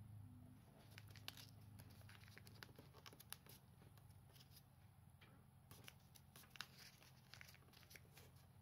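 Faint crinkling and soft clicks of a sheet of origami paper being folded and creased by fingers, over a low steady hum.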